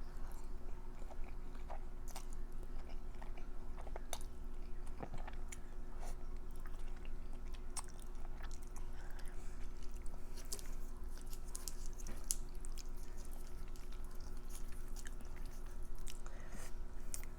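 Close-miked chewing of a mouthful of creamy pasta, with many small wet mouth clicks scattered throughout.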